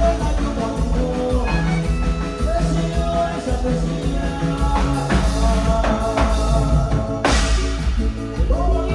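Music playing loudly: a band with a singing voice, drums and a heavy bass.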